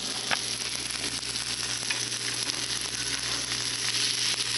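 Canned herring fillets sizzling in oil in a nonstick frying pan, a steady dense crackle of fine spits and pops.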